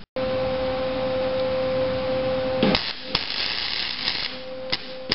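Wire-feed welder tack-welding steel brackets to a truck axle: a steady arc crackle with a humming tone, breaking off about two and a half seconds in, then shorter stretches of arc with sharp starts.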